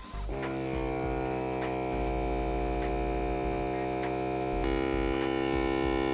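Oliso vacuum sealer's pump running with a steady hum as it draws the air out of a bag of steaks; the sound shifts and gets slightly louder about four and a half seconds in.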